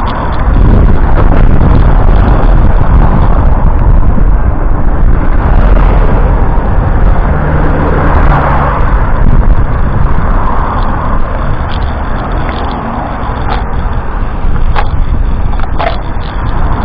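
Strong wind buffeting the microphone: a loud, continuous low rumble that swells and eases with the gusts, with a few sharp clicks in the last few seconds.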